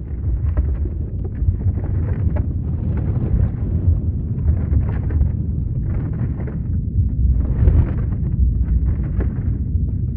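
Deep, continuous earthquake rumble, with rough surges and crackles coming and going every second or so above it.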